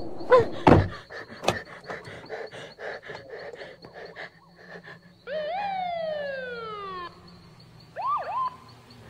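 Police car siren: one falling wail about five seconds in that cuts off after about two seconds, then a short whoop near the end. A few heavy thumps in the first second.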